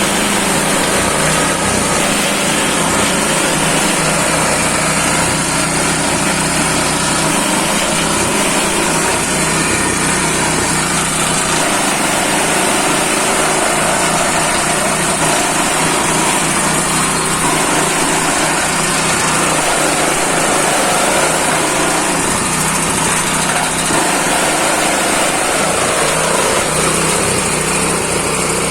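Multipurpose chopping machine for fodder and grass running steadily, with a continuous, even engine drone throughout.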